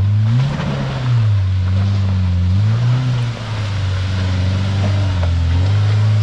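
Off-road vehicle's engine running under throttle, its pitch rising and falling back twice as the driver gives gas and eases off.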